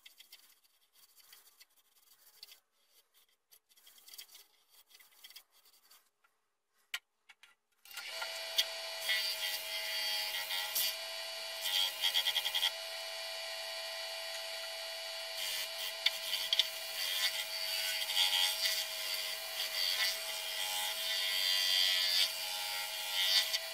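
Wax polish being rubbed by hand into a chestnut wood plate on a stopped wood lathe: faint rubbing and scratching. About eight seconds in, the lathe is switched on and its motor runs with a steady tone under a hiss of a cloth buffing the spinning plate.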